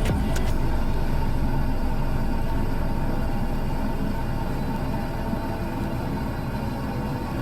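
Steady low rumble of a running vehicle, easing off slightly toward the end.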